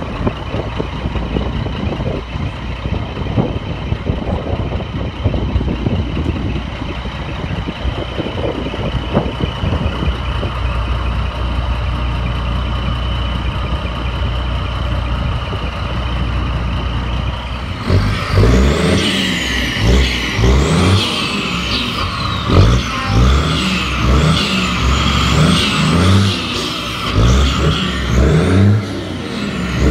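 Large truck engines running steadily. About two-thirds of the way through, a louder sound comes in, with a regular pulsing beat and high tones that slide up and down.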